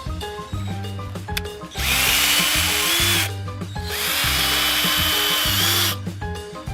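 Power drill run in two bursts, about a second and a half and then about two seconds long, drilling holes into the wall to mount a Ring doorbell; each time the motor whine rises as it spins up. Background music plays underneath.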